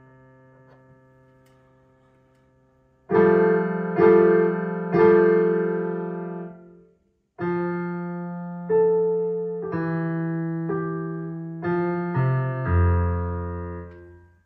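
Digital piano played slowly by a young beginner: a fading note, then from about three seconds in a simple melody of separate held notes with a short break halfway. It ends on a low note that rings out and fades.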